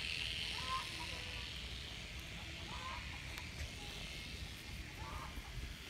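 Three short farm-animal calls, about two seconds apart, over a steady low rumble.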